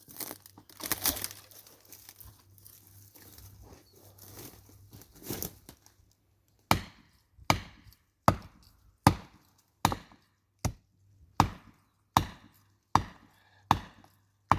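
Faint rustling and crackling for a few seconds, then a steady series of about eleven sharp blows on wood, about one every three-quarters of a second, as a striking tool is swung at a dead tree.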